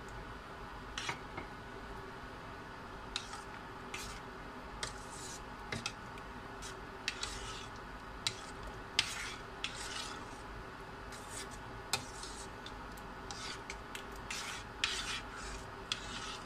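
A spoon stirring thick rice and coconut-milk porridge in a steel pot, scraping and clinking against the pot in short, irregular strokes.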